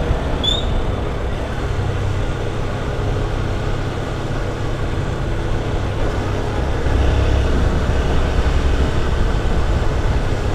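Honda CG 160 Titan motorcycle's single-cylinder four-stroke engine running steadily as the bike is ridden, getting louder for a couple of seconds about seven seconds in.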